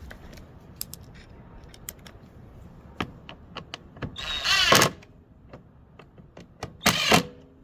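Tool work on a push mower: scattered light clicks and knocks, with two short, louder buzzing bursts about four and seven seconds in.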